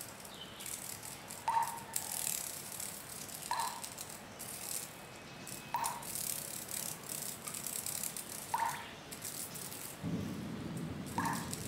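Rattling, shaking bursts with a short higher note that recurs about every two seconds; a low rumble comes in near the end.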